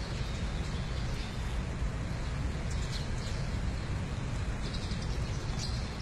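A few short, faint, high bird chirps, a handful of small calls about halfway through and again near the end. Under them runs a steady low rumble of background noise.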